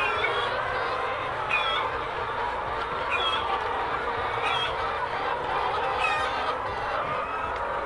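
A large flock of caged brown laying hens clucking and calling together, a dense steady din of overlapping calls with single louder calls standing out every second or two.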